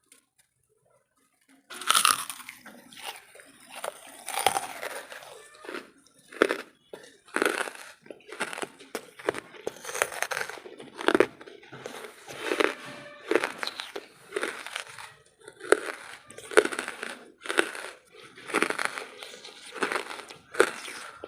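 Close-miked chewing of wood charcoal: repeated crisp crunches, about one or two a second, starting about a second and a half in.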